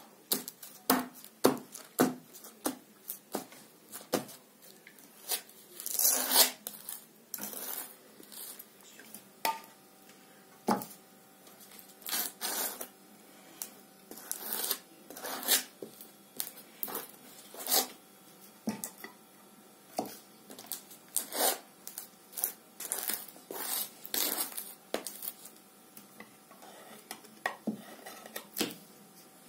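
Table knife spreading thick boiled condensed milk over a crisp wafer cake sheet: a long string of short, irregular scrapes and taps of the blade on the wafer.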